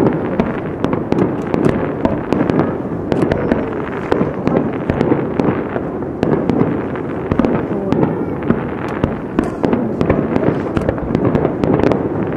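Aerial fireworks shells going off in quick succession: many sharp bangs and crackles close together over a continuous low din.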